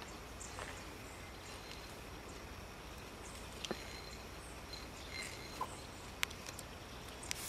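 Outdoor forest ambience: a steady faint background hiss with a few short, high bird chirps and several sharp clicks in the second half.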